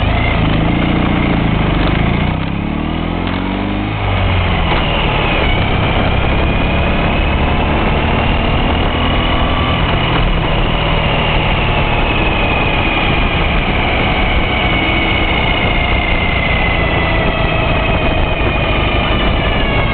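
Ural sidecar motorcycle's air-cooled flat-twin engine running on the move, heard from the sidecar. Its note rises and falls in the first few seconds and eases off briefly, then it pulls steadily under a constant low rumble of road and wind noise.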